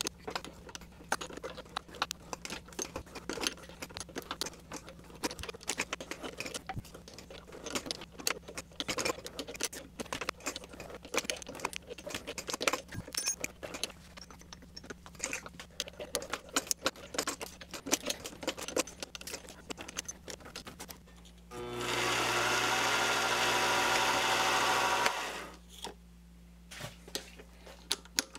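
Mini lathe turning slowly while a tap cuts an M8 × 1.25 thread into an aluminium part: a steady motor hum with dense clicking and crackling from the cut. About 21 seconds in, a much louder steady machine sound runs for about three seconds, then drops back to the hum.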